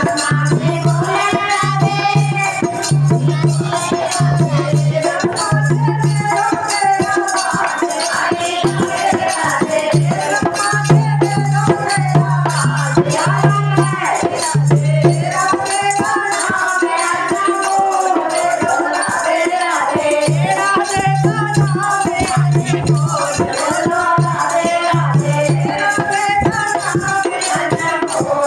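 Hindi devotional bhajan music: a melody line over a steady shaker/rattle rhythm and a pulsing low bass note.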